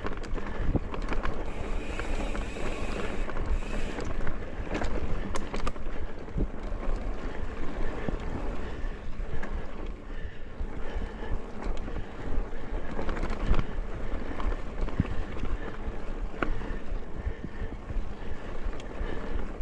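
Mountain bike rolling over dirt singletrack: tyre noise and rumble from the trail, with frequent sharp knocks and rattles from the bike over bumps, and wind on the microphone.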